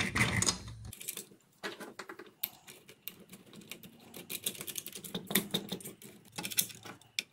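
Irregular light clicks and taps of plastic and metal parts being handled and fitted together: the adjustable anti-kickback guard of a router table going onto its aluminium fence.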